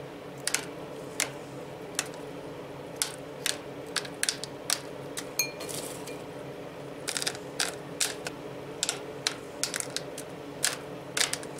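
Shelled pistachios clicking against a glass bowl as a hand picks them out, and dropping onto plastic cling film: irregular light clicks, a few in quick clusters, over a faint steady hum.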